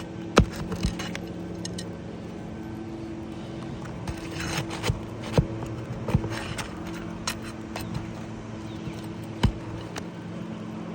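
Pry bar and hammer working roofing nails out of three-tab asphalt shingles: scattered sharp metal knocks and scrapes, with a quick cluster of strikes about four to five seconds in. A steady low hum runs underneath.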